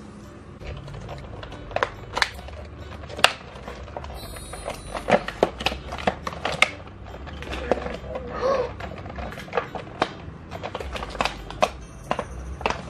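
Scissors snipping through cardboard and plastic toy packaging, then the clear plastic blister box clicking and crinkling as it is handled. The sharp clicks and snaps come irregularly, the loudest about three seconds in.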